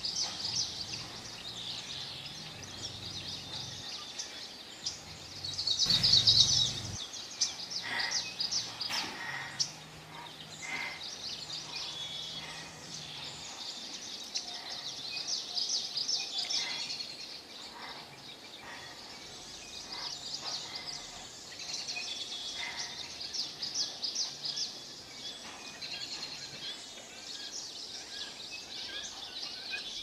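Birds chirping and twittering continuously in many short, high calls, with a brief louder burst of noise about six seconds in.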